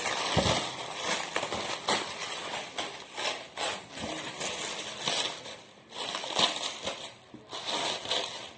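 Packing material rustling and crinkling in irregular bursts as it is handled and pulled away from a new car headlight.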